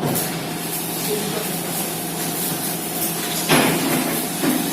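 Steady hissing workshop noise with a low hum, typical of welding equipment running in a training shop, and a sharp knock about three and a half seconds in.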